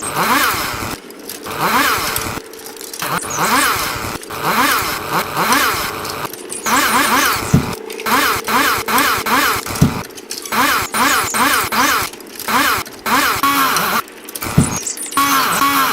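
A small two-stroke engine, most likely a chainsaw, revving up and down again and again, a few revs a second. The sound comes in chopped segments that stop and start abruptly.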